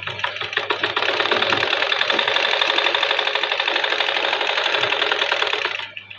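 Sewing machine stitching at a fast, even pace, its needle and mechanism making a rapid clatter, then stopping abruptly shortly before the end.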